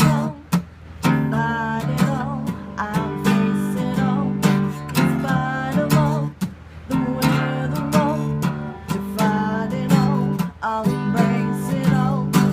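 Acoustic guitar strummed in a steady rhythm through an instrumental break of a folk song, with a wavering melody line over the chords.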